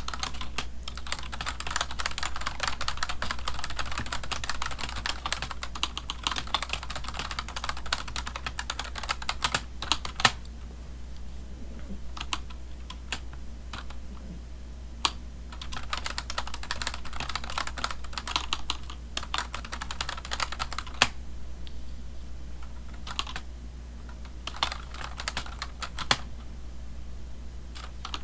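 Typing on a computer keyboard: fast runs of keystrokes alternating with pauses of scattered single key presses, with a few louder isolated clacks.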